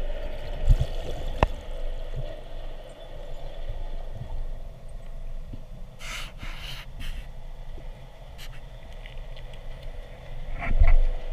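Underwater ambience picked up by a GoPro inside its waterproof housing: a steady muffled rumble with a constant hum. There are a few dull knocks about a second in and again near the end, and short hissing sweeps about halfway through.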